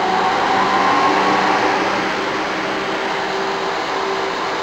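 Sun Fire rack server powering up: its cooling fans whir up to speed with a rising pitch over the first second, then settle into a loud, steady hum.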